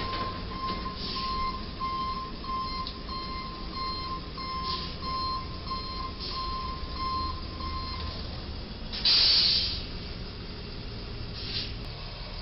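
A moving-van box truck's body striking and scraping under a low railroad trestle, heard as a few faint knocks and crunches under an electronic beeping about twice a second. About nine seconds in comes a loud hiss lasting about half a second.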